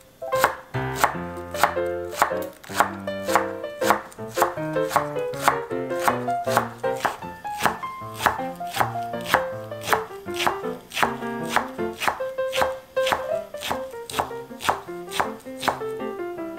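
Chef's knife slicing a rolled bundle of perilla leaves into thin strips on a bamboo cutting board, the blade knocking the board in a steady rhythm of about two cuts a second. Light background music with piano plays underneath.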